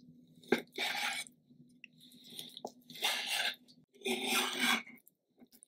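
Chef's knife cutting raw chicken breast into cubes on a wooden cutting board: a sharp tap of the blade on the board about half a second in, then three short scraping, squishy cuts through the meat.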